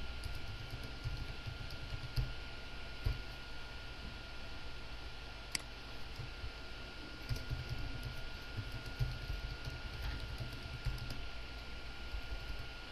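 Computer keyboard typing in irregular runs of keystrokes, with one sharper click about halfway through, likely a mouse click, over a faint steady hum.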